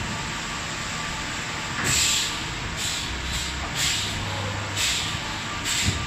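Automatic rollover car wash running, its rotating brushes scrubbing a car's bodywork with water spraying: a steady rushing hiss, with repeated brief louder swishes from about two seconds in as the bristles sweep the body.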